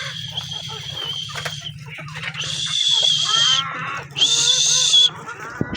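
Chickens calling: three long, high-pitched, steady squeals, each about a second, with softer low clucking between them, over a steady low hum.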